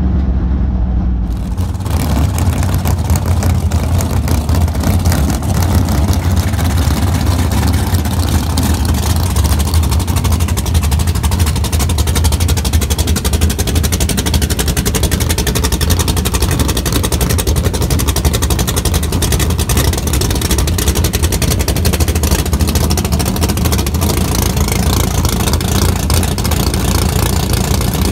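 Drag race car's engine running loudly and steadily, heard close up with rapid exhaust pulsing. About a second and a half in, the sound jumps from muffled to open and full.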